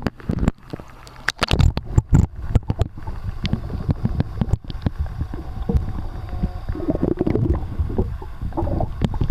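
Water heard through a camera microphone that has gone underwater: sharp splashes and knocks over the first three seconds, then a steady muffled underwater rumble with gurgling and bubbling.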